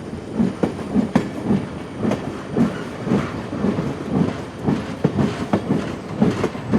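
Small ride train rolling along its track, its wheels clacking in a steady run of low thumps about twice a second.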